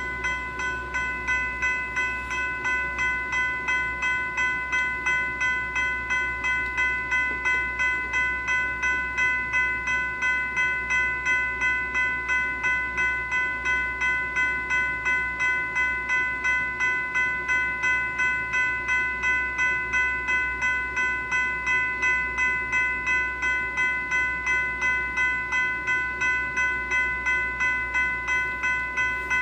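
General Signal Type 3 E-Bell electronic bell ringing continuously: a synthetic bell tone struck over and over at about three strokes a second, each stroke fading quickly before the next.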